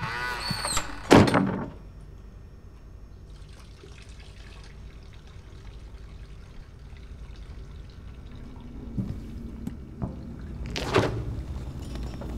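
Wooden door creaking on its hinges, then shutting with a loud thunk about a second in. Quiet room tone follows, with a shorter, softer knock near the end.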